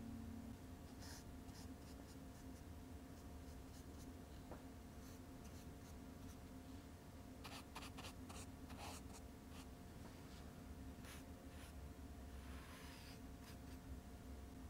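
Faint strokes of a small paintbrush dragging gouache across sketchbook paper, short scratchy passes in clusters around the middle and near the end, over a low steady hum.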